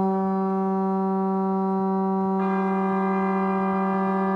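Boat horns from moored barges sounding one long, steady blast. A second horn joins about two and a half seconds in, and the two sound together as a chord.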